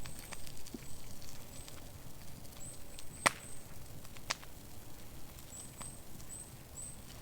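Two sharp knocks about a second apart, the first the louder, with a few fainter ticks. A small bird gives short, thin, very high calls in repeated runs throughout.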